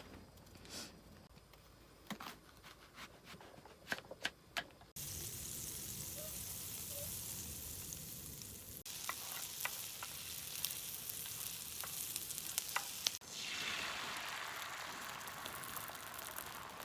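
A few light clicks and taps, then from about five seconds in, food sizzling loudly in a hot frying pan with small utensil taps over it. The sizzle breaks off abruptly twice and comes straight back.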